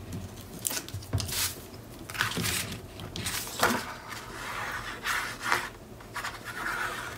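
Sheets of scrapbook paper and cardstock being handled, sliding and flipped on a cutting mat, in a series of short rustles and scrapes.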